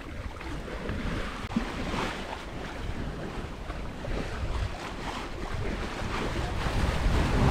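Sea water rushing and splashing along the hull of a sailing yacht under way, with wind buffeting the microphone.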